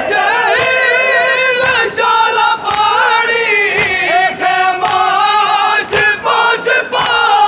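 A man's voice chanting in long, held, wavering notes over the steady noise of a dense crowd of men.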